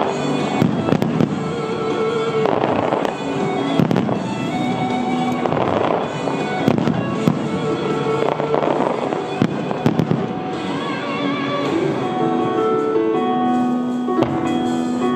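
Fireworks bursting in a rapid string of sharp reports and crackle, from gold trailing aerial shells and ground fountains, over show music with sustained notes that come to the fore in the second half.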